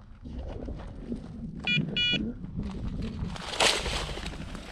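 A hunting dog's electronic beeper collar giving a quick double beep about two seconds in, over footsteps crunching through snow and dry brush. About three and a half seconds in comes a brief loud rush of noise as birds flush from the cover.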